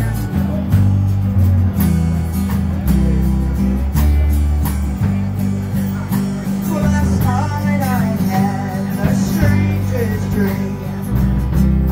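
Live band playing an instrumental passage: strummed acoustic guitars over sustained bass notes, with a lead line of bending notes coming in about halfway through.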